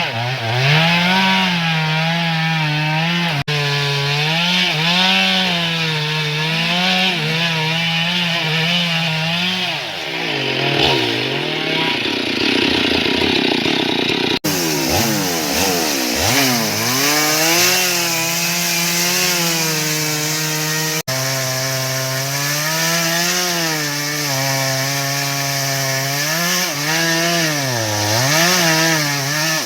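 Stihl MS 382 two-stroke chainsaw cutting into a large teak trunk, its engine note rising and falling with the load. The sound breaks off abruptly a few times at edits.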